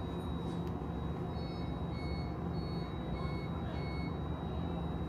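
Five short, high electronic beeps, a little under two a second, from the warning signal of a Pesa Twist 147N tram, over the tram's steady low interior hum.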